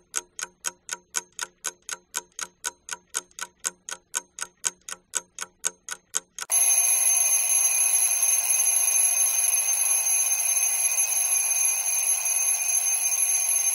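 Alarm clock sound effect: fast, even ticking, about four ticks a second, then about six and a half seconds in the alarm bell starts ringing continuously, signalling that the time to answer is up.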